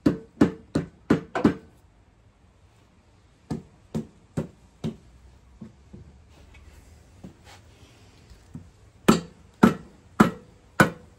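Rubber mallet knocking on the housings of a Mazda 13B Renesis rotary engine to break the stack loose after the through bolts are out; the housings are stuck tight. A quick run of about five blows at the start, four lighter ones in the middle, and four hard ones near the end.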